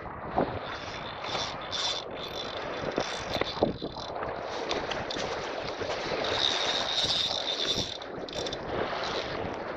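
Spinning reel whirring in two long stretches while a hooked chum salmon is played, the first from about half a second in to four seconds and the second from about six to eight seconds. Wind buffets the microphone throughout.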